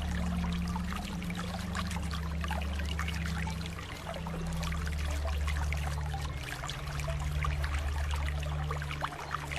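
Running water trickling and splashing steadily, like a small stream, over soft light background music of slow, sustained low notes that shift every second or two.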